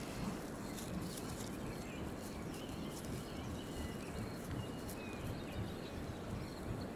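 A plastic bag of soil crinkling and rustling as gloved hands dig through it for mole cricket bait, over a steady low wind rumble on the microphone.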